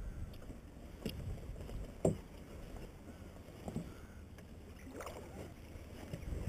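Small boat on a lake: a handful of knocks and water slaps against the hull, the loudest about two seconds in, over a low steady rumble.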